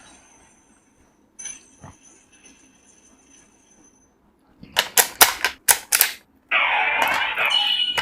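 Several sharp plastic clicks in quick succession from the CSM OOO Driver toy belt as it is worked by hand, then, about six and a half seconds in, the belt's loud electronic sound effect starts playing from its speaker.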